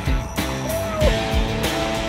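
Music with a steady drum beat and a guitar line whose notes bend in pitch.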